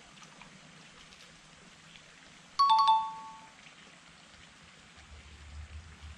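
A two-note chime sound effect, a higher note then a slightly lower one like a doorbell ding-dong, sounding once about two and a half seconds in and ringing away within a second, added with a pop-up lightbulb graphic. A faint steady hiss runs underneath.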